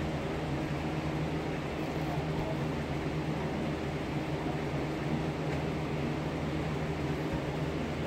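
Electric fan running steadily: a constant whir with a low hum underneath.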